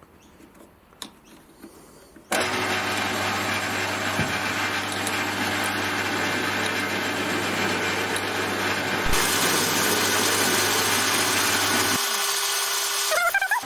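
A few light clicks, then about two seconds in a workshop power tool's electric motor starts abruptly and runs steadily with a low hum under a loud hiss.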